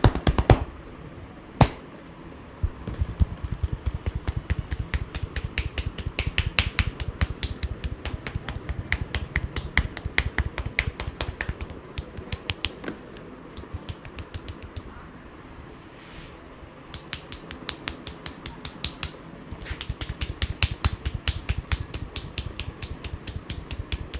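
Rapid percussive massage strokes: hands slapping and tapping on the body in long runs of sharp slaps, several a second, with a lull of a few seconds midway. A single sharp crack comes about two seconds in.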